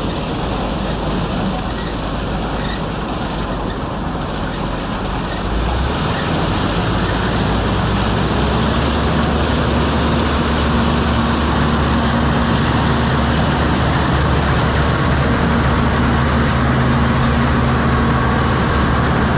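Heavy farm machinery engine running steadily during corn harvest; about six seconds in it gets louder, with a deeper, steady engine hum.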